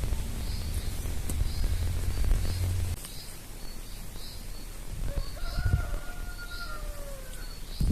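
A rooster crows once, a slightly falling call of about two seconds, over a small bird's faint high chirps repeating about twice a second. A low rumble stops about three seconds in.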